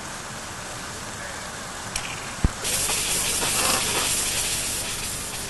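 Miniature live-steam locomotive venting steam: a steady hiss at first, then, after a short knock about halfway through, a loud high hiss as steam jets from the open cylinder drain cocks.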